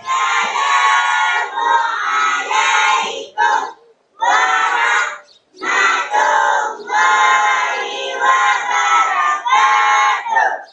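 Several voices singing together in short, loud phrases, with brief breaks about four and five and a half seconds in, then cutting off at the end.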